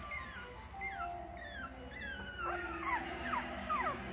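Litter of four-week-old puppies whimpering and squealing: many short high cries that slide down in pitch, several a second and overlapping, growing busier in the second half.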